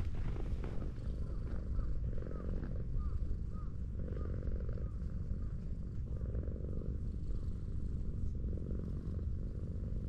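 Tortoiseshell cat purring steadily while being stroked, the purr swelling and easing in slow pulses every second or two.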